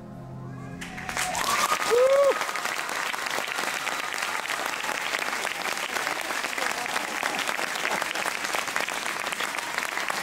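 The music stops at the very start, and about a second in an arena audience breaks into applause. A loud cheer rises out of the crowd around two seconds in, and then the clapping carries on steadily.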